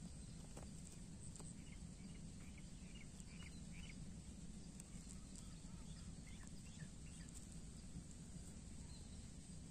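Faint outdoor field ambience: a steady low rumble with a few faint high chirps and ticks, mostly about three to four seconds in.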